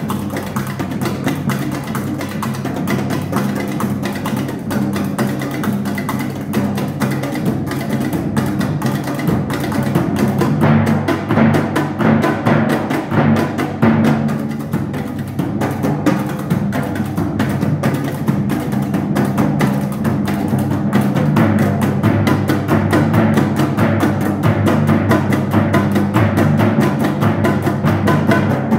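Percussion ensemble playing a piece for timpani, tom-toms and other drums: a dense, fast rhythm of drum strokes over deep pitched timpani notes. It grows louder about ten seconds in and stays loud.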